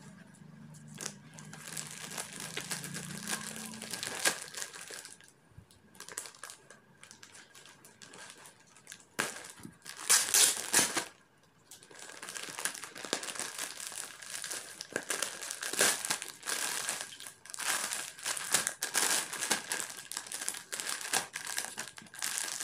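A parcel's packaging crinkling and tearing as it is unboxed by hand, in irregular bursts with a louder stretch about ten seconds in.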